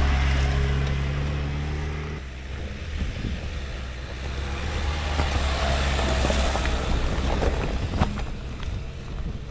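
A Lada Niva 1.7's four-cylinder engine running steady and loud under load as the 4x4 climbs close by. About two seconds in, it cuts abruptly to a Dacia Duster 4x4 crawling up a rocky track, its engine quieter, with scattered clicks of loose stones under the tyres, a sharper click near the end, and wind on the microphone.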